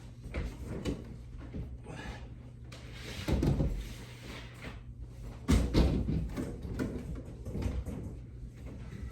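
Refrigerator being installed: irregular knocks, clatter and scraping, with heavier thumps about three and a half and five and a half seconds in, over a steady low hum.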